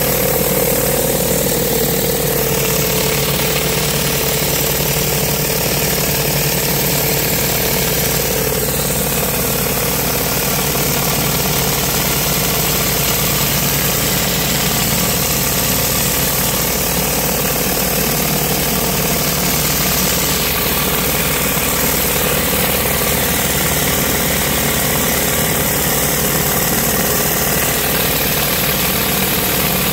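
Pressure washer's engine running steadily under the hiss of water jets from a rotary Sprintjet surface cleaner spraying a concrete path. The hiss changes in tone now and then as the cleaner moves over the surface.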